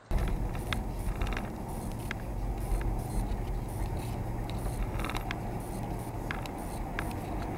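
A car driving, its road and engine noise heard from a dash camera inside the car, with scattered sharp clicks and rattles about once a second.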